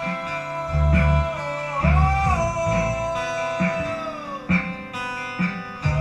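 A small band playing live: acoustic guitar strumming and electric bass notes under a held lead melody line that bends in pitch.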